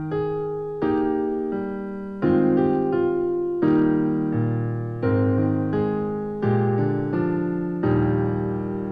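Background music: a slow run of soft piano chords, struck about every three-quarters of a second, each left to ring and fade.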